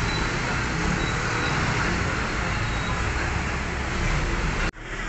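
Steady road traffic noise: a continuous rumble of passing vehicles' engines and tyres. It cuts off abruptly near the end and comes back quieter.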